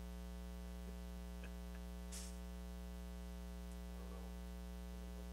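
Steady electrical mains hum with a ladder of overtones running through the sound system, the audio fault that marred this recording. A short burst of hiss comes about two seconds in, with a few faint clicks.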